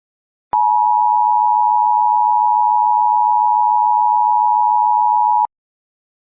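Emergency Alert System attention signal: a loud, steady two-note electronic alert tone that starts about half a second in, holds for about five seconds and cuts off abruptly.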